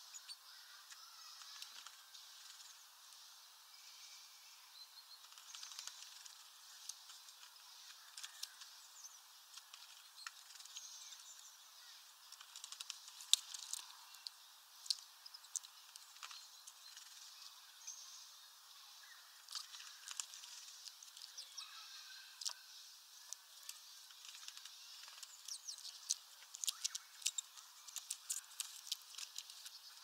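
Great tit bathing in a shallow plastic tub of water, splashing and fluttering its wings in short bouts, with water drops pattering and ticking. The splashing comes thickest about 13 seconds in and again over the last few seconds.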